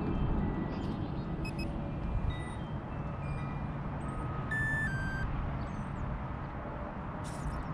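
Steady low rumble of wind buffeting the microphone, with short electronic beeps at different pitches scattered through it and a cluster of them a little past halfway.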